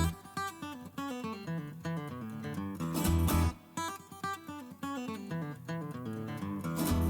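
Background music: acoustic guitar picking a melody, with a strummed chord a few seconds in and a fuller band with drums coming back near the end.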